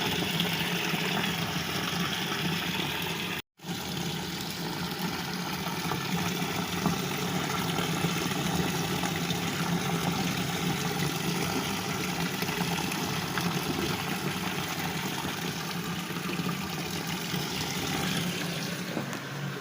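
Water running steadily into the wash tub of a twin-tub washing machine, filling it for a rinse, with a low steady hum underneath. The sound cuts out completely for a moment about three and a half seconds in.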